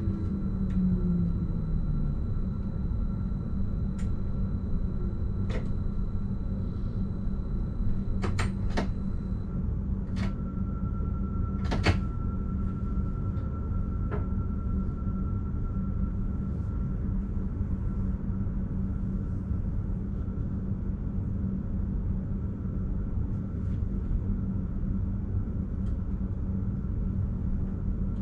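BLS RABe 515 'Mutz' electric multiple unit heard from inside the driver's cab: a falling whine in the first couple of seconds as the train comes to a stand, then the steady low hum of the standing train. Occasional sharp clicks and knocks break into the hum.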